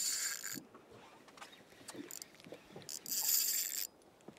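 Spinning reel cranked in two short bursts, a high whir of the gears and line pickup, the first at the start and the second about three seconds in.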